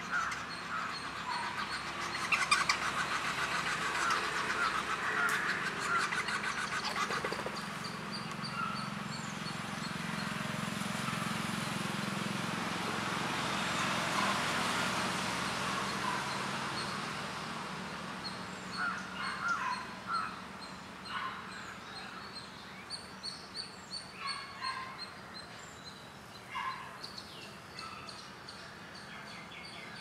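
Outdoor garden ambience of several birds chirping and calling, with short separate calls coming more often in the second half. A broad rushing noise with a low hum swells and fades over the first half or so.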